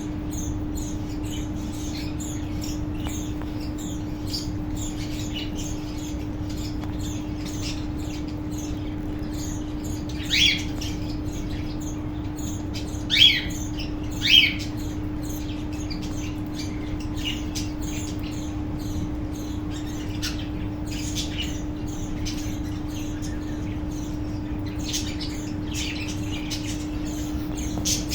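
Colony of budgies and cockatiels chattering with rapid high chirps, and three louder squawking calls about ten to fifteen seconds in. A steady low hum runs underneath.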